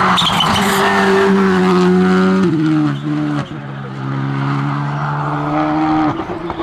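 Rally car engine running hard at high revs as the car passes close and pulls away. The engine note drops sharply about two and a half seconds in, dips in level, then holds steady before dropping again near the end.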